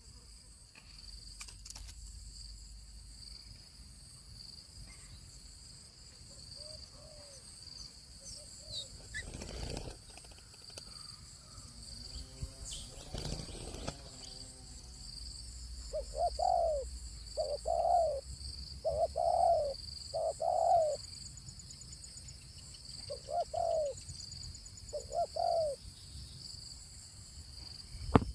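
A bird calling in short, low, hooting notes, each rising and falling. Four come in quick succession about two-thirds of the way in, then two more after a pause. A steady high-pitched hum runs underneath.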